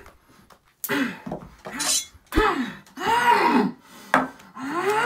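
A man's wordless hooting, mimicking a monkey: several hoots in a row that each rise and fall in pitch, with a few sharp knocks in between.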